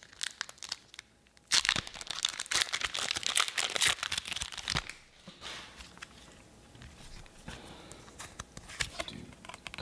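Foil booster pack wrapper being torn open and crinkled: a loud, dense crackle starting about a second and a half in and lasting about three seconds, then quieter rustling.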